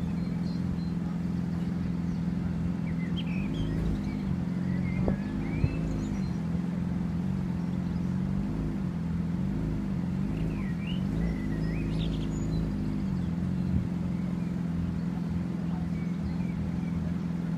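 A vehicle engine idling with a steady low drone, its pitch wavering now and then, while birds chirp over it.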